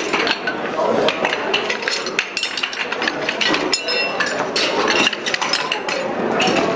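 Metal couplings of fire-brigade suction hoses clanking and clinking as the hoses are dragged out and snapped together at speed: many quick sharp knocks, a few with a short metallic ring.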